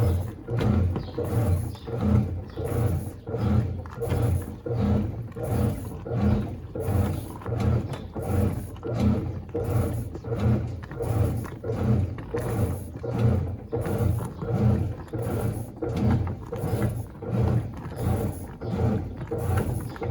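GE Imagination 10 kg top-load washing machine agitating: the motor drives the agitator back and forth in an even rhythm, a little over one stroke a second, each stroke a low mechanical hum that rises and falls.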